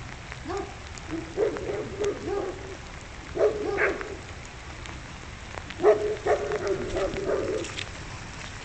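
Dog barking in repeated bouts of several barks, alarm barking at a bald eagle perched overhead that it sees as a threat to the lambs.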